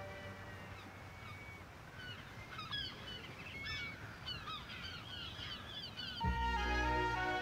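A flock of gulls crying, many short calls rising and falling in pitch, over a low wash of sea waves. Orchestral music comes in near the end.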